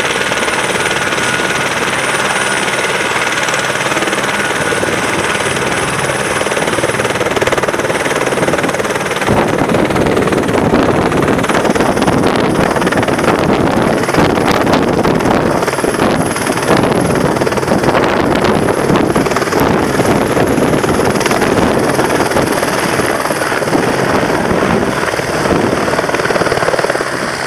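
Turbine helicopter running on the ground with a steady turbine whine. About nine seconds in the power comes up and it lifts off, the rotor noise growing louder and rougher as it hovers and then climbs away overhead.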